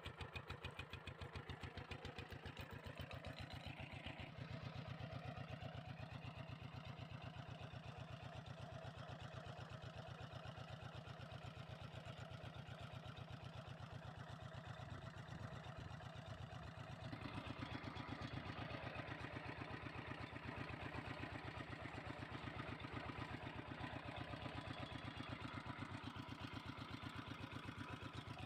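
Two-wheel walking tractor's single-cylinder diesel engine running with a steady, rapid chugging beat while pulling a seed planter through tilled soil. The tone changes slightly about four seconds in and again a little past halfway.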